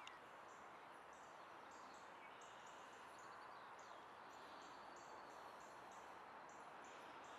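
Quiet outdoor ambience: a steady low hiss with small birds chirping, short high notes repeating on and off.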